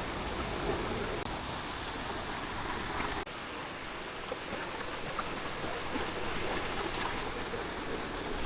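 Fast-flowing river water rushing steadily, an even wash of noise with no letup.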